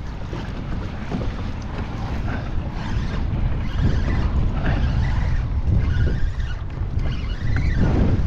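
Wind buffeting the microphone, with choppy water lapping against the kayak hull.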